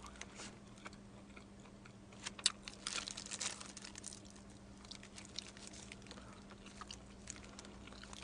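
Biting into and chewing a slice of pepperoni pizza, close to the microphone. A cluster of crisp crunches comes about two to three and a half seconds in, followed by scattered quieter chewing clicks, over a steady low hum.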